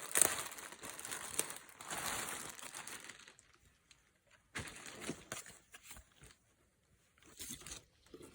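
Packaging crinkling and rustling as a blanket is handled and pulled from its wrapping, dense for about three seconds, then a few short soft rustles.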